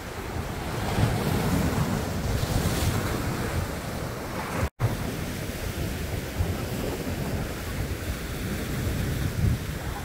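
Sea waves washing and breaking over shoreline rocks, with wind buffeting the microphone. The sound cuts out for an instant a little before halfway through.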